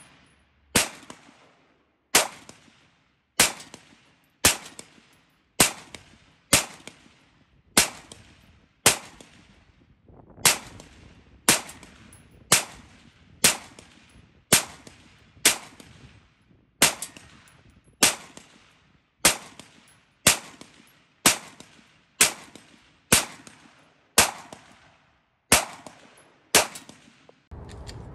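San Tan Tactical STT-15 AR-15-style rifle chambered in .223 Wylde, fired semi-automatically in a slow, steady string. About two dozen sharp shots come roughly one a second, each with a short ringing tail.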